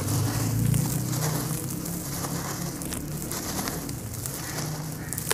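A dry sand-cement chunk crumbling in the hand, gritty pieces and dust pouring onto a pile of loose crumbs in a dense patter of small ticks, a little louder in the first second.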